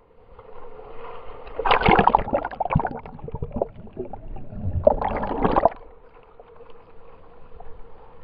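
Shallow surf washing over and around a waterproof camera at the waterline: muffled sloshing and gurgling, with two louder surges about two and five seconds in.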